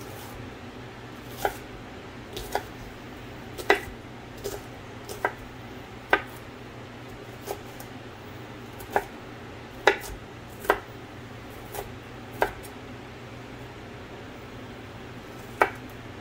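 Chef's knife chopping red onion on a wooden cutting board: about fifteen irregular knocks of the blade on the board, with a pause of a few seconds before a last knock near the end. A steady fan hum runs underneath.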